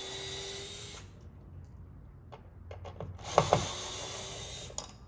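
Cordless electric screwdriver backing out door-panel screws in two short runs: a steady whine for about a second, then a few clicks and a second run of nearly two seconds that opens with two sharp knocks.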